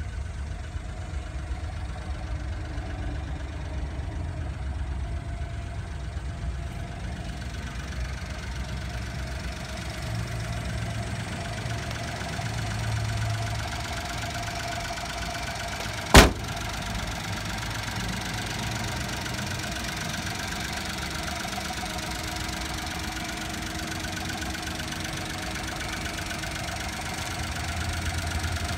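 Honda Acty truck's small three-cylinder engine idling steadily, with one sharp click about halfway through.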